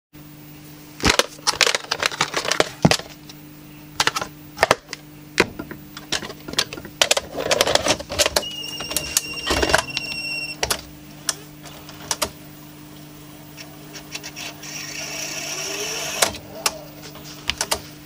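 Panasonic NV-F65 VHS video recorder being loaded with a cassette. First come clicks and knocks of the tape being handled and pushed into the slot, then the loading mechanism runs for about a second and a half and ends in a loud clunk as the cassette seats, followed by a faint rising motor whine.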